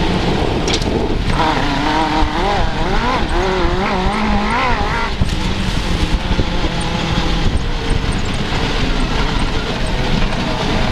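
Suzuki GSX-R600 inline-four motorcycle engine in an off-road buggy, running hard with its revs rising and falling rapidly for a few seconds in the first half, then holding steadier.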